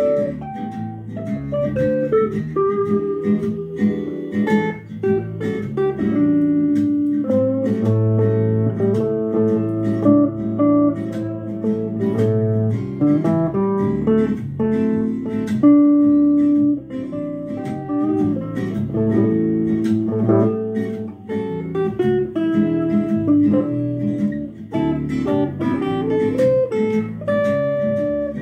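Les Paul-style electric guitar playing a blues shuffle, a continuous run of picked notes and chords that keep changing pitch.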